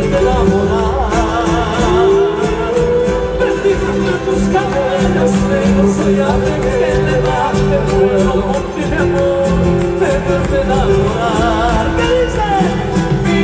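Live Andean folk band music amplified through a stadium sound system, with charango, guitars and percussion under a wavering melody line.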